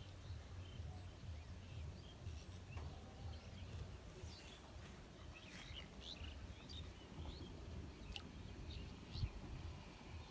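Scattered short bird chirps over a low steady rumble, with a single dull thump about nine seconds in.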